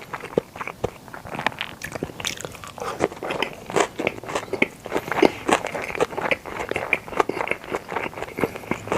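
Close-miked chewing of sushi: a rapid, irregular run of wet mouth clicks and smacks.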